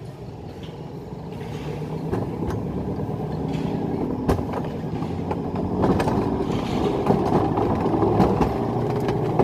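Alpine mountain coaster cart running down its steel monorail track: a steady droning hum of the wheels on the rail that grows louder as the cart picks up speed, with a few sharp clicks.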